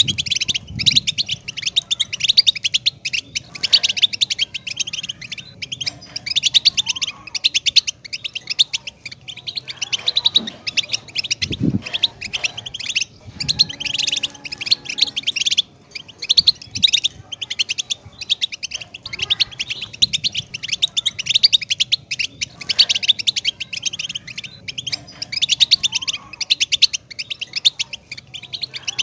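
European goldfinch singing: a long, fast run of high twittering and trills, broken only by brief pauses.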